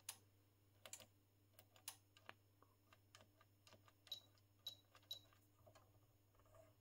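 Faint clicks of the push buttons on a Hameg HM8042 curve tracer's front panel being pressed one after another. About four seconds in come three short high beeps from the instrument, about half a second apart, as it answers key presses.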